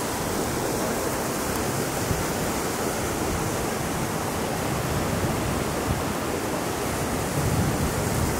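Steady rush of fast-flowing creek water over rocks, an even wash of noise with no breaks.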